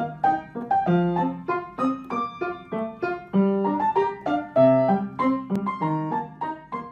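Background piano music: a melody of short, separate notes, a few a second, each struck and fading.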